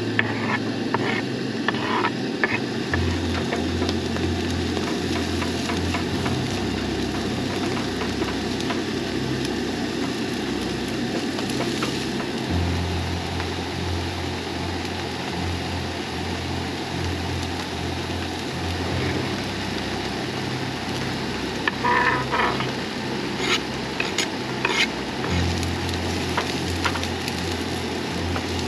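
Diced onions and garlic sizzling steadily in a frying pan on a two-burner camp stove. There are a few scrapes of a knife pushing food off a cutting board near the start, and spatula scrapes and taps in the pan a little before the end.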